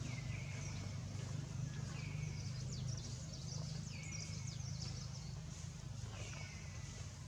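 Animal calls outdoors: a short high call sliding downward repeats about every two seconds, with a cluster of quick high chirps a few seconds in, over a steady low hum.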